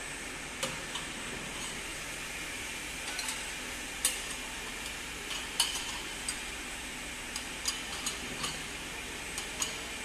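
Powder-coated metal ceiling fan parts clinking and knocking against each other as they are handled and stacked into plastic crates: a dozen or so short, sharp clinks at irregular moments. Under them runs a steady hiss of factory machinery.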